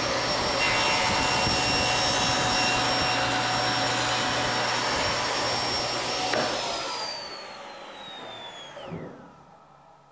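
Table saw running with its blade raised up through the sled's wooden backup fence to cut a fresh zero-clearance kerf. It is switched off about six seconds in and the whine falls in pitch as the blade spins down, with a knock near the end.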